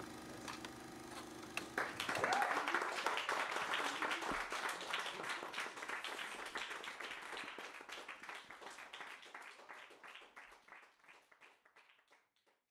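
A steady droning tone from the performance stops and audience applause breaks out about two seconds in. The applause peaks early, then thins to scattered claps and dies away near the end.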